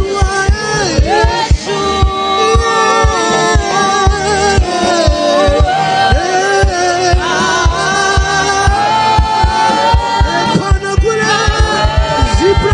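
Gospel worship music: voices singing over a band with a steady bass-drum beat.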